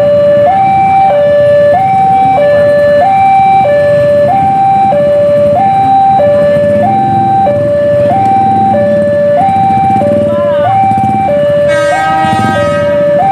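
Level-crossing warning alarm sounding its electronic two-tone chime, alternating between a lower and a higher note about once every 1.2 seconds. This is the signal that a train is approaching and the barrier is down. Motorcycle engines idle underneath, and a brief higher-pitched sound cuts in near the end.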